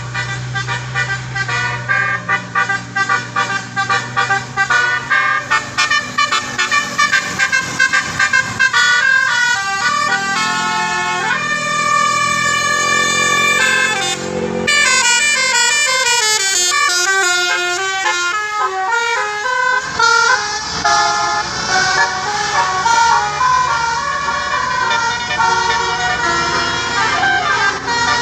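Basuri 'telolet' multi-tone bus horn playing tunes: quick strings of short notes, a few longer held chords about midway, then fast runs of notes stepping up and down.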